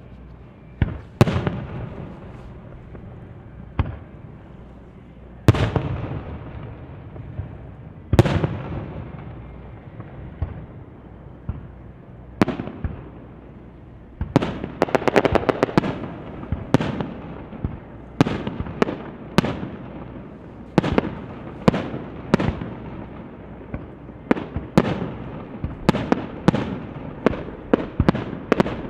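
Aerial firework shells bursting, each bang trailing off in a long echo. At first single booms come a few seconds apart; about halfway in a rapid run of bursts and crackling sets in, then bangs come about one a second.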